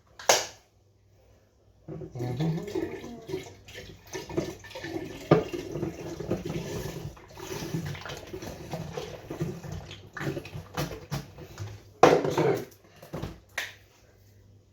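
Fruit juice being poured into a cider fermenting vessel, a steady pour lasting about eight seconds, followed by a few short, louder knocks near the end.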